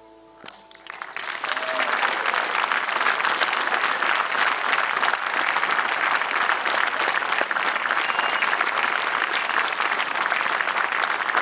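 Audience applause starts about a second in, just as the last note of a song fades, and goes on steadily as dense clapping.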